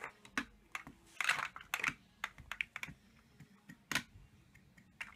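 Irregular light clicks and clacks of large plastic toy building blocks being handled, with one sharper knock about four seconds in.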